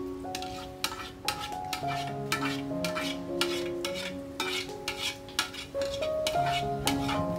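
Metal ladle scraping and knocking against the inside of an aluminium pot in quick repeated strokes, about two a second, as the last of the liquid ice-cream mixture is scooped out. Background music plays under it.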